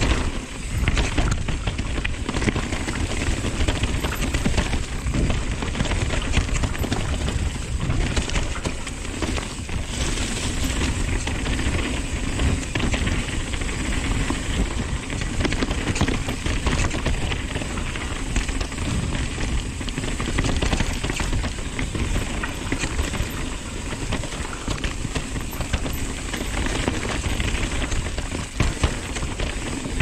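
Nukeproof Dissent 290 RS downhill mountain bike descending a rough dirt trail at speed: a steady rush of tyres on dirt and wind at the camera microphone, with frequent rattling and clattering of the bike over rocks and roots.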